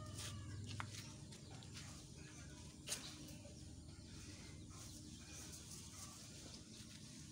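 Faint outdoor background, with a rooster's crow trailing off right at the start. A light click comes just under a second in, and a single sharp click about three seconds in.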